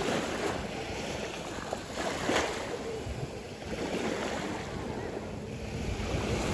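Waves washing in, with wind buffeting the microphone; the noise of the water swells and fades.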